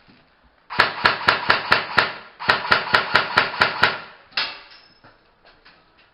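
Airsoft replica firing in two quick bursts of sharp shots, about seven a second, followed by one more shot about a second later.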